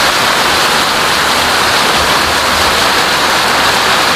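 Heavy rain pouring down in a steady, loud hiss.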